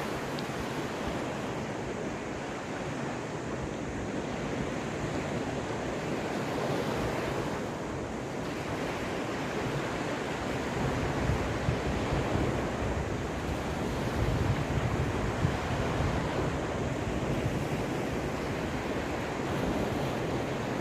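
Waves of the Caspian Sea washing onto the shore in a steady rush of surf, swelling louder in the second half, with wind buffeting the microphone.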